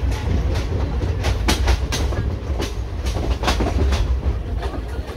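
ICF passenger coach wheels clicking over rail joints, clickety-clack in close pairs, over a steady low rumble of the running train.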